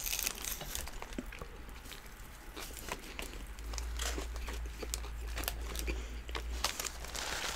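Close-up eating sounds: chewing of doner kebab and fries, with paper wrappers crinkling and many short clicks scattered throughout.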